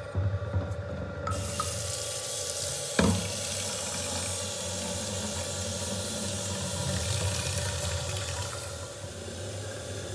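Kitchen tap water running into a plastic bottle held in a stainless steel sink, starting about a second in and then running steadily. A single knock about three seconds in.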